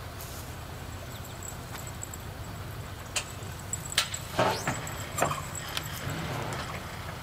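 A handful of sharp knocks and clatter, clustered from about three to six seconds in, as a man climbs onto the bow of a boat sitting on its trailer at a boat ramp. Under them runs a steady low hum from the pickup truck idling on the ramp.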